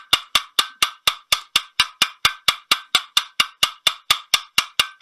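Hammer striking a bell-mouth punch on the end of a rapper sword handle's metal rod in a vise, rounding off the rod's sharp edge. The blows are rapid and even, about four a second, each a sharp ringing metallic tap.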